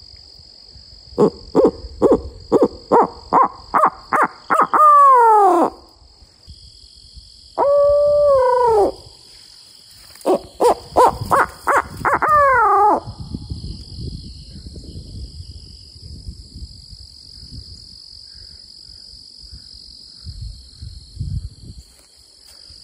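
Duct-taped wooden tube owl hooter blown in three phrases: a run of quick hoots climbing in pitch that ends in a long falling note, a single drawn-out hoot that falls at its end, then another run of quick hoots ending the same way. It is an owl locator call, blown to make roosted gobblers answer with a shock gobble.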